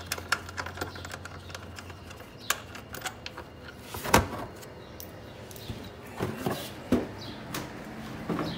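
Scattered clicks and knocks of hands and a hand tool working on bolts behind a car's plastic fender liner and bumper cover, with the plastic being flexed and pulled back. The loudest knock comes about four seconds in, another about seven seconds in.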